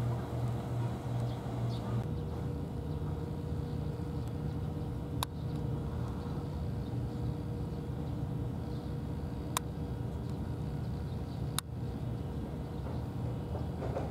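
Steady low mechanical hum, with three sharp clicks spread through it.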